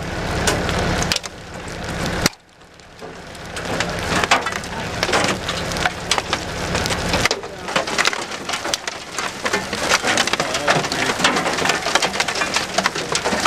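Large hailstones falling hard and striking, a dense irregular clatter of many sharp cracks. The clatter drops away suddenly a little over two seconds in, then builds again.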